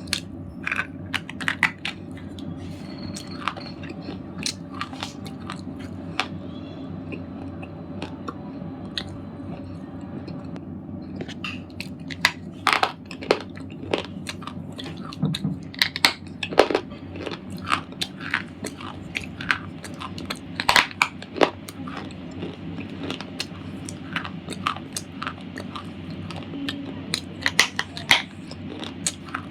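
A red slate ball being bitten and chewed: irregular sharp crunches and gritty crackles, sparse at first and coming thick and fast from about ten seconds in. A steady low hum runs underneath.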